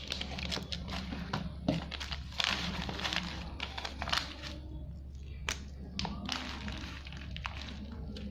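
Handling noise from pens and their packaging: scattered taps and clicks, with two bursts of crinkly rustling, one a couple of seconds in and one near the end, over a steady low hum.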